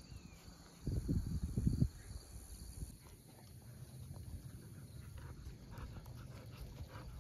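Malinois puppy chewing on a small object, with faint, irregular crunching clicks in the second half. About a second in there is a short stretch of low rumbling thumps on the microphone.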